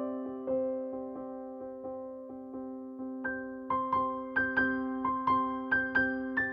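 Background music: a soft piano or electric piano tune, with slower held notes at first and a quicker run of higher notes in the second half.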